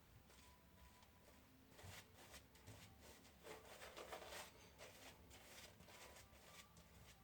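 Faint, irregular scratchy strokes of a razor shaving through lather and stubble, starting about two seconds in.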